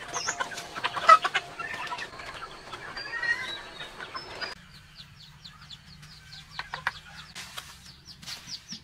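A flock of chickens clucking while pecking grain off the ground, with many sharp pecks and clicks. About halfway through this gives way to a quieter run of short, high chirps, about four a second, with a few scraping strokes.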